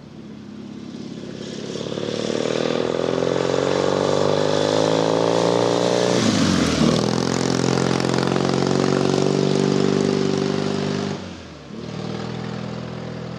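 Matchless G12 parallel-twin motorcycle with a freshly rebuilt engine, riding up and past close by. The engine note climbs as it accelerates toward the listener and drops sharply as it goes past, about six seconds in. After a break near eleven seconds, the engine is heard running steadily again.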